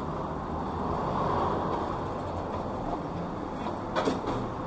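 Bicycle rolling over stone paving, a steady low rumble that eases as it slows, with a short click about four seconds in as it comes to a stop at the bike rack.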